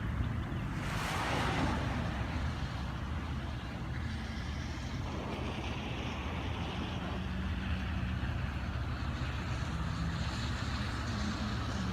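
A motor vehicle's engine running steadily with road or tyre noise. A brief rushing sound about a second in.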